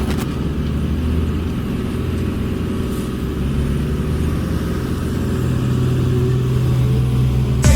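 Engine of a heavy construction machine running steadily, growing a little louder toward the end, then a sharp click.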